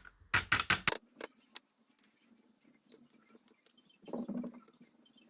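Small metallic clicks and taps of lock pins, springs and tools being handled while a dimple-lock cylinder is taken apart, with a quick cluster of sharp clicks in the first second and a few faint ticks after.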